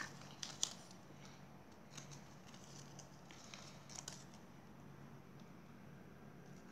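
Faint, scattered rustles and small clicks of plastic toy wrappers and a plastic capsule being handled, over a steady low hum.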